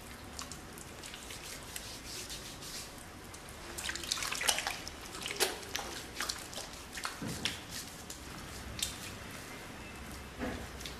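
Irregular wet clicks and drips, coming more thickly from about four seconds in, with a low thump about seven seconds in.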